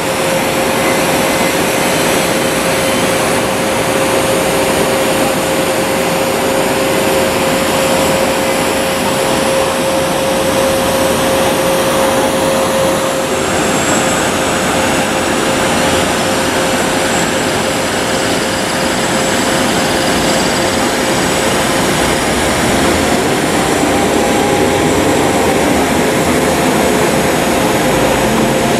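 Jet airliner noise on an airport apron: a steady rushing whine holding one tone, without a break.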